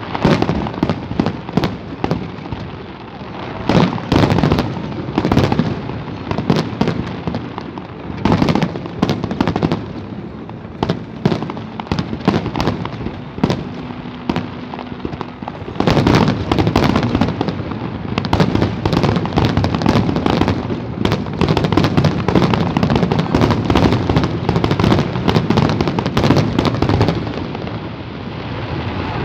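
Aerial fireworks display: shells bursting and crackling in quick succession. About halfway through they thicken into a dense, nearly continuous barrage, which thins out near the end.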